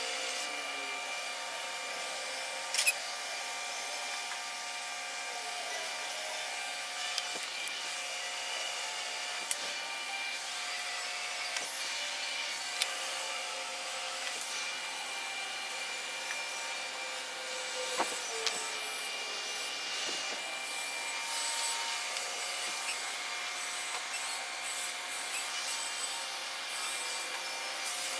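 Steady hum of shop machinery, several tones held at a constant pitch, with a few sharp clicks and taps scattered through.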